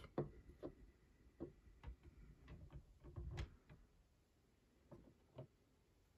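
Faint clicks and light taps of a hard plastic graded-card slab being handled and set onto a wooden display stand, several over the first three and a half seconds and two more around five seconds in.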